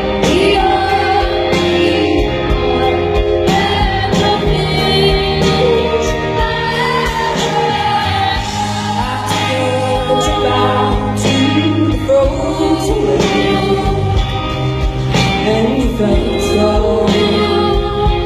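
Live band music: two women's voices singing together in harmony over bass, guitar and regular drum beats.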